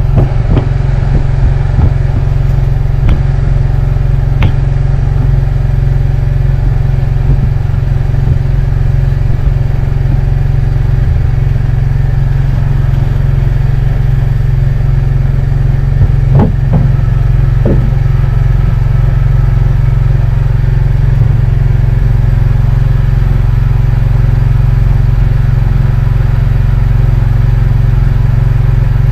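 Boat engine running steadily at constant speed, a low even drone with a few light knocks, about half a second in and twice more around sixteen to eighteen seconds.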